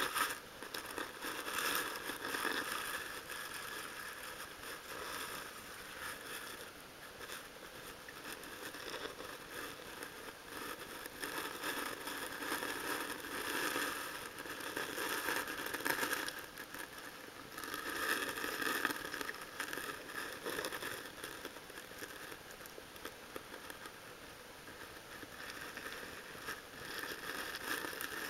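Underwater noise picked up by a submerged camera: a rushing hiss full of fine clicks that swells and fades every few seconds.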